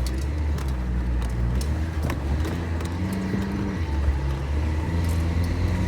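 A motor vehicle's engine running steadily: a low drone whose pitch shifts slightly partway through, with a few faint clicks.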